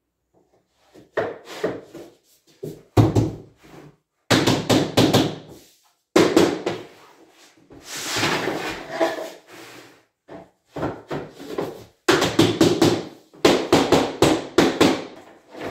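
Laminate floor planks being fitted and knocked together on the floor: repeated wooden knocks and taps in quick clusters, with a longer scrape near the middle.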